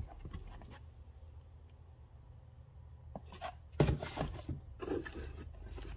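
Cardboard-wrapped firework fountains being handled and put down: rubbing and light knocks of card. Starts about three seconds in, with the loudest knock near four seconds.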